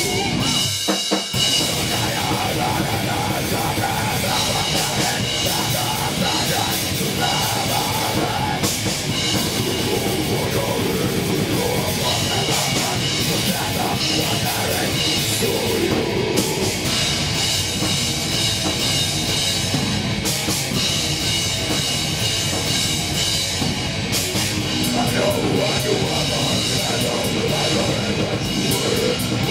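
Live heavy rock band playing: electric guitar, bass guitar and drum kit together at a steady loud level, with a brief break in the sound about a second in.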